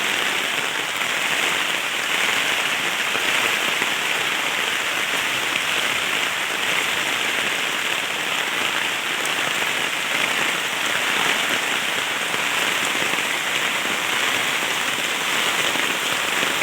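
Heavy rain falling steadily, an even wash of rain noise that neither builds nor eases.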